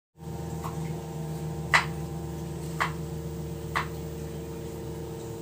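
Sony KV-14JSR1 CRT TV's sound giving a steady buzzing hum instead of clear programme sound, the weak, raspy distorted sound that is the set's fault. Over it, four clicks about a second apart as a front-panel volume button is pressed; the second click is the loudest.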